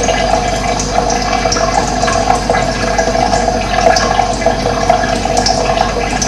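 Running water flowing steadily, a continuous rushing sound with no breaks.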